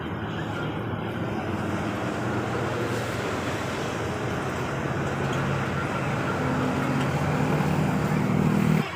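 Road traffic noise with a vehicle engine, getting louder in the last few seconds, then cutting off suddenly just before the end.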